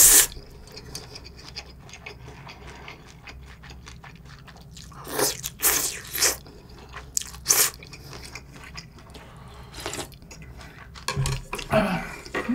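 Person eating cold raw-fish noodle soup (mulhoe): several short, loud slurps of noodles, with crunchy chewing and small mouth clicks between them.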